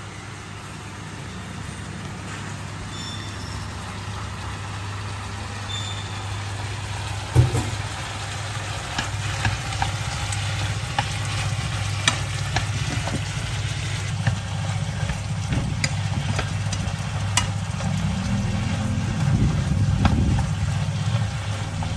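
Beef and broccoli stir-frying in a frying pan: sizzling, with a thump about seven seconds in, then short clicks of chopsticks stirring against the pan. A steady low hum runs underneath.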